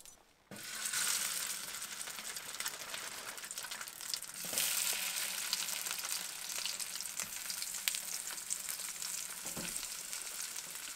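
Homemade fish cakes frying in a small lightweight frying pan: a steady sizzle full of fine crackling spatters. It starts abruptly about half a second in and grows louder about four and a half seconds in.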